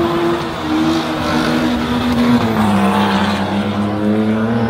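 Drift car engine held at high revs, its pitch dropping about halfway through, then climbing again near the end.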